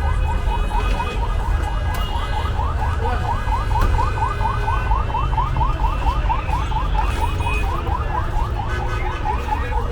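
An electronic alarm or siren-type warning sounding a fast run of short rising chirps, about five or six a second, over a steady low rumble.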